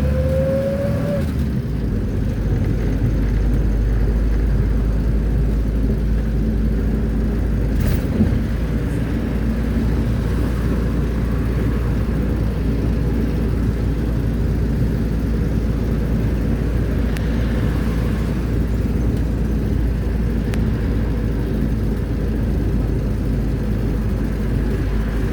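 Mercedes-Benz T1 minibus on the move, its engine and road noise heard from inside the cabin as a steady low rumble. A rising whine fades out about a second in, and there is a single knock about eight seconds in.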